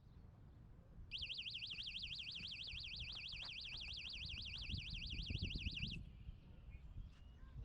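Electronic alarm warbling: a high tone sweeping rapidly up and down, about seven times a second, starting about a second in and cutting off abruptly about five seconds later.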